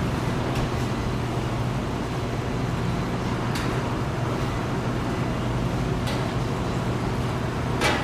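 Steady machine noise with a low hum, broken by a few sharp clanks, the loudest near the end.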